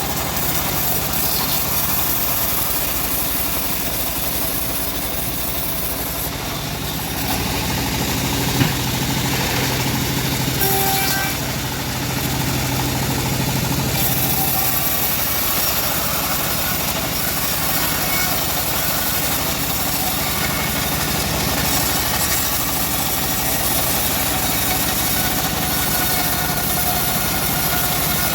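A homemade bandsaw sawmill running steadily, its engine droning under load, with a single short knock about eight and a half seconds in.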